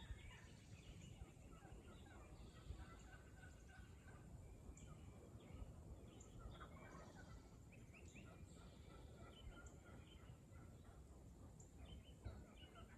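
Faint, distant wild turkeys calling, among scattered chirps of other birds in spring woodland, over a low background rumble.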